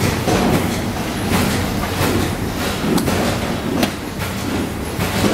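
Electric plastic spiral binding machine running: its motorized roller hums steadily as it spins a plastic coil into the punched holes of a book, with irregular clicks and clatter from the coil.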